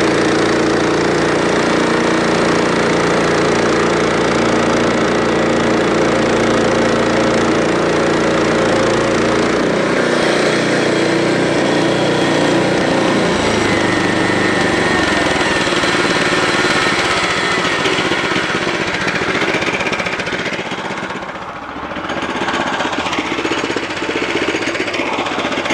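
Harbor Freight bandsaw sawmill's small gasoline engine running steadily. About ten seconds in its note changes as the deepest hum drops away, and the level dips briefly a few seconds before the end.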